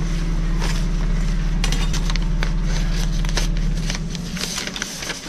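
Sheets of paper rustling and crinkling as they are handled, over a steady low hum that fades out about four seconds in.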